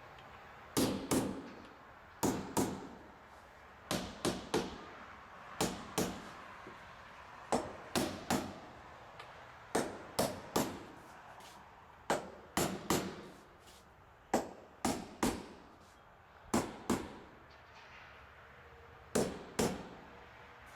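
A hammer striking nails in quick groups of two or three blows, with a pause of a second or two between groups.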